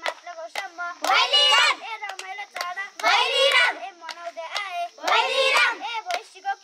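Group of voices chanting a Tihar bhailo-style call-and-response, a loud chorus line about every two seconds with softer voices between, over sharp hand claps.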